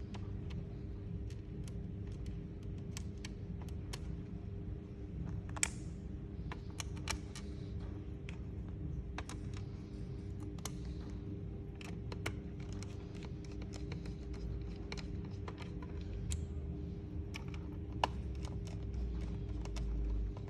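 Irregular light clicks and taps of hands working on a laptop, a few a second with gaps, over a steady low hum.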